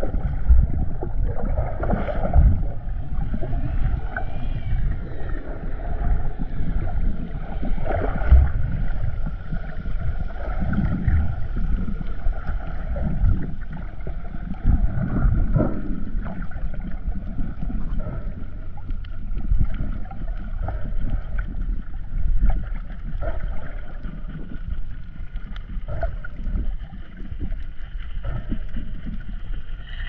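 Muffled underwater sound of water moving around a submerged camera: a dense low rumble with many short knocks, and a faint steady hum.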